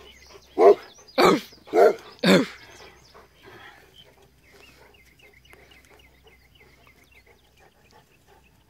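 Newfoundland dog barking on command: four deep barks in quick succession, about half a second apart.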